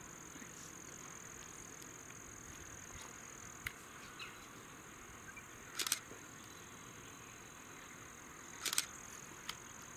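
Quiet outdoor ambience: a faint steady high-pitched hiss, with a few light clicks and two short, sharp crackling noises about six and nine seconds in.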